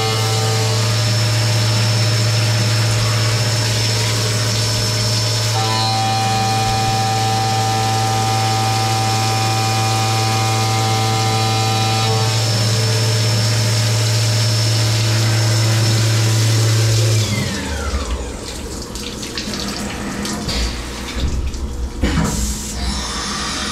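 Syil X7 CNC mill face milling with a 2-inch four-flute face mill at 6,500 RPM under flood coolant: a loud, steady spindle hum with cutting noise and coolant spraying. About 17 seconds in the spindle winds down with a falling whine and the cutting stops, leaving quieter irregular clatter and a sharp knock near the end.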